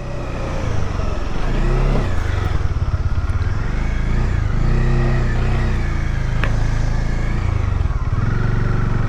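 Motorcycle engine running at low speed on a rough off-road track, its pitch rising and falling with throttle changes.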